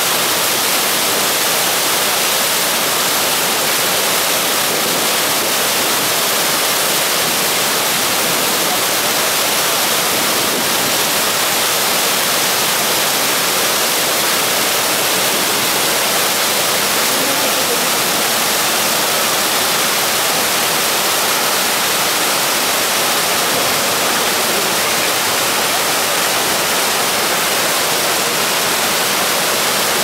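The Keila-Joa waterfall on the Keila River pouring into foaming water below, a loud, steady rushing that does not change.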